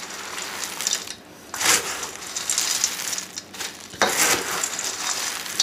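Crisp Nutri-Grain cereal pieces being stirred with a spoon, a dry rattling crunch that comes in surges, starting sharply about one and a half seconds in and again about four seconds in.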